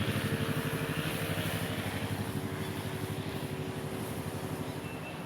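Motorcycle engine running with a steady note, fading as it moves away.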